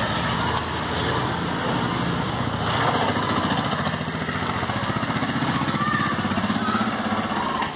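Small motor-vehicle engine running close by, its even beat clearest in the second half, with children shouting in the background.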